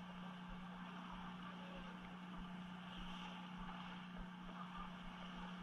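Steady low hum of a fishing boat's machinery running under a faint, even background noise.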